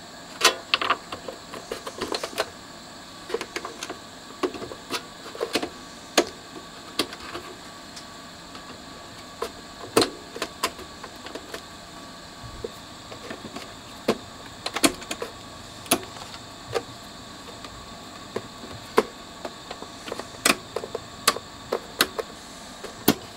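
Irregular sharp clicks and taps of hard plastic as control knobs are pushed onto the shafts of a Telefunken CR100 radio cassette recorder. The clicks come every second or so, some in quick pairs, over a faint steady hum.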